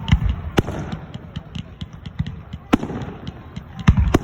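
Fireworks bursting overhead: sharp bangs with a booming rumble between them, the loudest pair coming in quick succession near the end.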